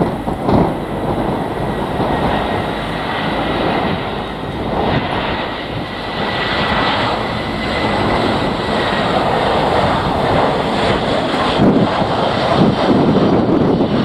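Jet engines of an Airbus A319 on final approach: a steady rush of engine noise with a high whine that fades after about nine seconds, mixed with gusty wind buffeting the microphone.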